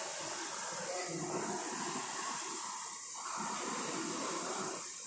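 Concept2 indoor rowing machine's air flywheel whooshing as it is rowed, the rush swelling with each drive stroke, the strokes about two seconds apart.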